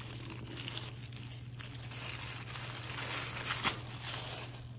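Packaging being unwrapped by hand, crinkling and rustling continuously, with one sharper crackle about three and a half seconds in.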